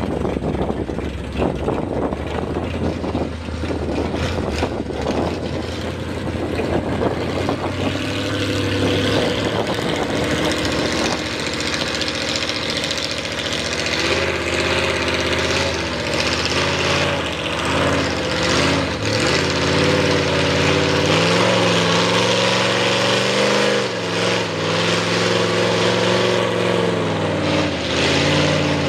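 Ford mega mud truck's V8 on open headers running loud and uneven, then revving up and down repeatedly from about eight seconds in as the truck churns through the mud pit.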